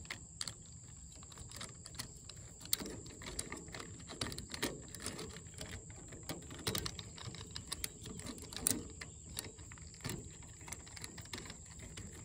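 Hands working the plastic parts of a tripod head, screwing an extender piece on: small irregular clicks and knocks, a few sharper than the rest, over a steady faint high tone.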